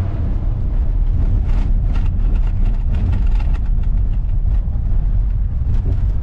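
Loud, steady low rumble of a vehicle on the move, the road and wind noise of driving, with small knocks and rattles throughout.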